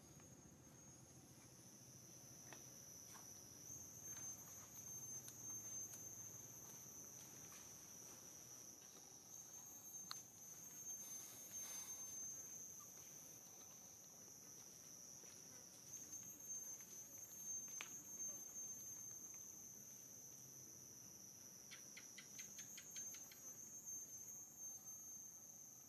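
Insects trilling in a steady high-pitched drone that swells and warbles every few seconds, with a few faint clicks.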